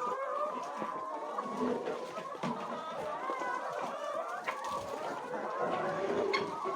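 A flock of chickens clucking, many birds overlapping in a continuous chatter.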